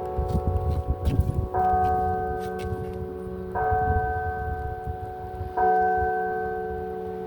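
Church carillon bells struck three times, about two seconds apart, each note ringing on and fading. A low rumble and a few clicks sound through the first second and a half.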